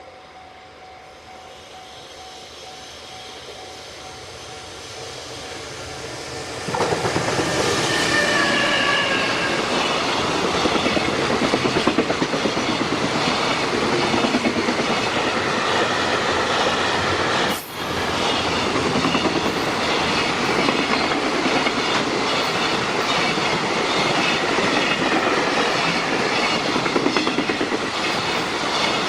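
Freight train approaching, growing louder for several seconds, then passing close with a steady fast clickety-clack of wagon wheels over the rail joints.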